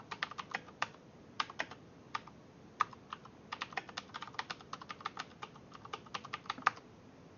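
Typing on a computer keyboard: irregular runs of quick key clicks with short pauses, stopping near the end.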